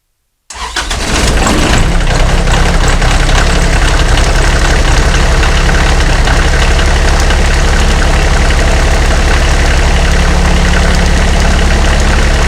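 Kioti tractor's diesel engine starting about half a second in after the glow plugs have warmed, catching at once and running steadily. It starts now that the corroded battery cable clamp behind the no-start has been replaced.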